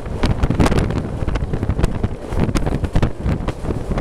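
Wind buffeting the microphone from a moving passenger train, over a steady low rumble with frequent irregular knocks.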